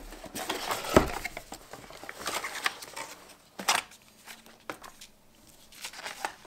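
A cardboard box being handled and opened on a table: a single knock about a second in, then scattered scraping and rustling of the box flaps and paper leaflets, which grows quieter over the last couple of seconds.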